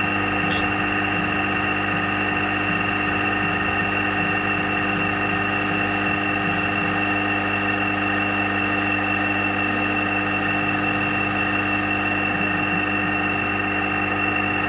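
Drilling machine motor running steadily with a constant whine, drilling holes in a steel part.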